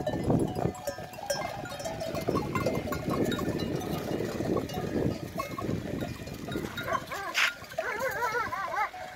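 A large herd of goats milling close by: many hooves shuffling and trampling, with bells clinking. Near the end a goat bleats with a quavering, wavering pitch.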